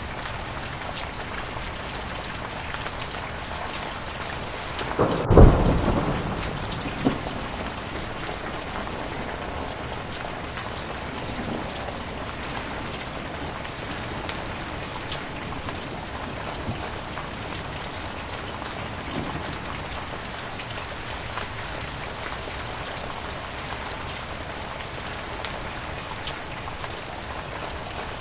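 Heavy rain falling steadily, with a clap of thunder about five seconds in that rumbles away over the next second or two, then a smaller crack shortly after.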